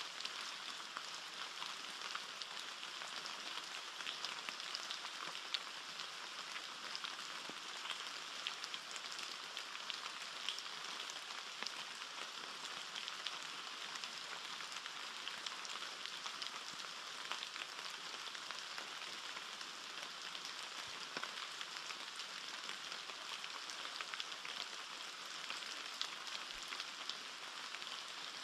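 Steady rain pattering on forest foliage: an even hiss dotted with many small drop clicks.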